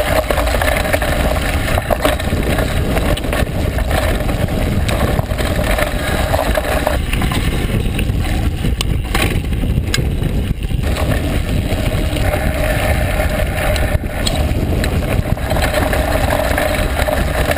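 A Specialized Demo 8 downhill mountain bike ridden down a dirt trail: tyres rolling over dirt and stones, with many short knocks and rattles from the bike over bumps. Wind buffets the microphone, giving a heavy low rumble.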